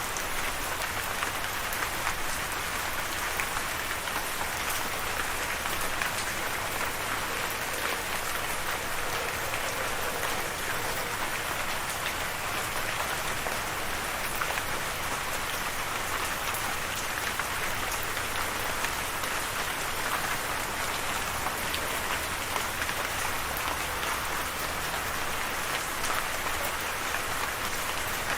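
Steady rain falling, a dense even hiss of drops with fine patter on a surface.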